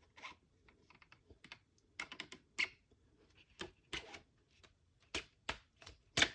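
Irregular small clicks and knocks of 3D-printed plastic airsoft stock and chassis parts being handled and worked, a dozen or so sharp taps spread unevenly, the loudest near the end.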